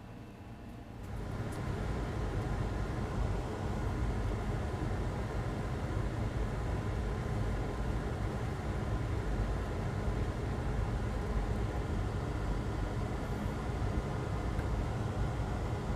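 A steady mechanical whir, like a small fan or blower, switches on about a second in and runs evenly.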